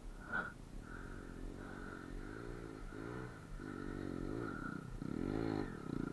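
Small dirt bike's engine revving up and down as it rides toward the listener through sand, its pitch rising and falling several times and growing louder near the end.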